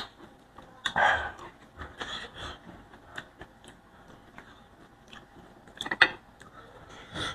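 Close-miked chewing and wet mouth sounds of eating boiled leafy greens, with scattered soft clicks and rustles as boiled stems are stripped of their leaves by hand. The loudest bursts come about a second in and again about six seconds in.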